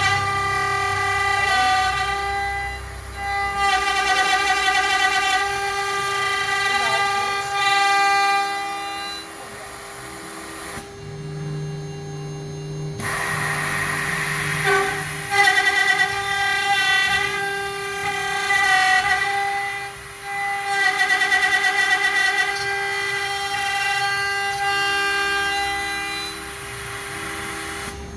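CNC lock-milling machine cutting a thermal-break aluminium profile: a high machining whine with many overtones that stops and starts several times as the cutter works. Partway through, the cutting drops out for a couple of seconds and a lower hum sounds on its own.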